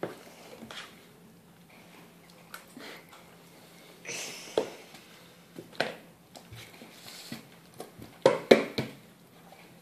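A handful of light clicks and scrapes of a metal fork on a dinner plate, spread out with pauses between them, in a quiet room.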